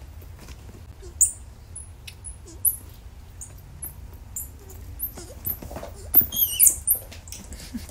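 Squirrel monkey giving a string of short, very high-pitched squeaks, each dropping in pitch, coming faster and louder near the end as it scuffles with a ring-tailed lemur. Faint taps and rustles of the animals moving on a leather couch run underneath.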